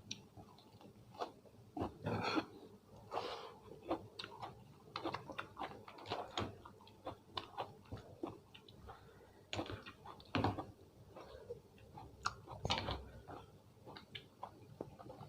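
A person chewing and biting food close to the microphone: irregular wet smacks and short crunches.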